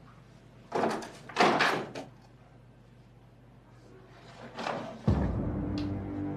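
A wooden desk drawer pulled open with two short scrapes, then a brief rustle of things being moved inside it. About five seconds in, low ominous music begins.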